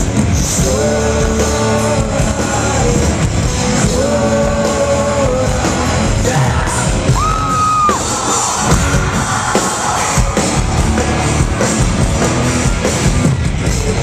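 Live rock band playing loudly: distorted electric guitars and drums under a singer's sung and yelled vocals, with one high note held for about a second near the middle.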